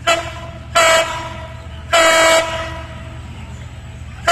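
Diesel locomotive's horn sounding a series of short blasts as the train approaches: a quick toot at the start, two longer blasts about a second apart, and another beginning at the very end, over a steady low rumble.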